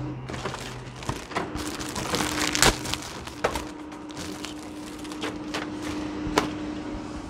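Sheets of paper being handled and shuffled, with rustles and light clicks, the loudest about two and a half seconds in, over a steady low hum.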